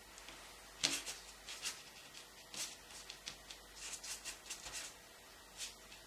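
Oil-paint brush dabbing and scraping on the painting surface in short, irregular strokes, about a dozen, the strongest about a second in.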